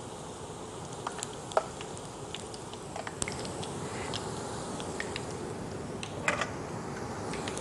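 Squares of wheat-flour and oats namkeen dough deep-frying in hot oil: a steady sizzle with scattered pops and crackles, a sharper pop about a second and a half in and a quick cluster of pops near the end.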